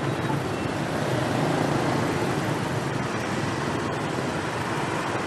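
Steady street traffic from many motorbikes, their engines running together in a continuous hum.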